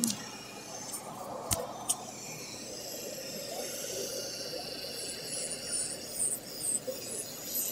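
Electric nail drill running steadily with a thin high whine as its bit files a fingernail into shape. Two sharp clicks sound near the start.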